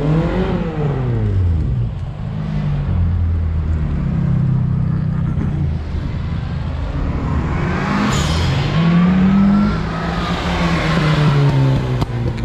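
Classic Minis' small four-cylinder A-series engines driving past one after another, revving up and easing off as each car goes by. About eight seconds in, one car's revs climb with a high whine over the engine note.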